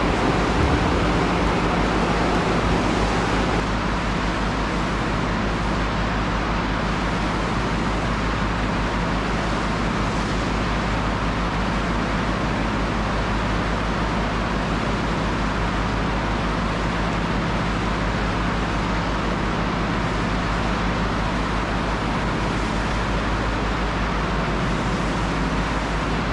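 Steady loud din of cement-plant machinery and the bag-loading conveyor belt running: an even rushing noise over a low hum, easing a little after about three and a half seconds.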